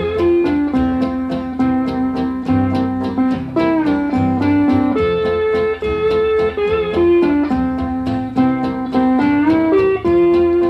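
Instrumental break of a country song: a steel guitar plays the melody in long held notes that slide from one pitch to the next, over a steady strummed guitar and bass accompaniment.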